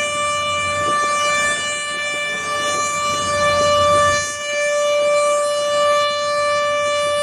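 River passenger launch horn sounding one long, steady, high blast.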